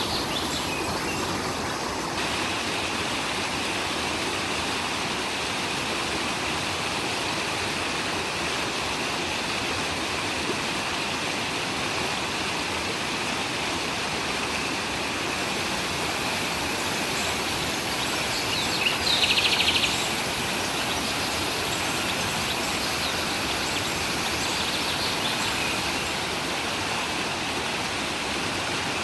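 Stream water rushing steadily, with birds calling over it. A short, louder burst of chirping comes about two-thirds of the way in.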